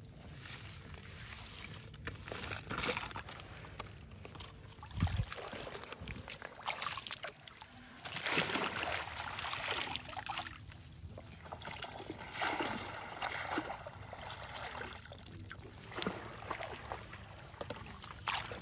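Shallow water sloshing and splashing in irregular bursts as a person wades through weedy marsh water and sweeps a woven basket scoop through it.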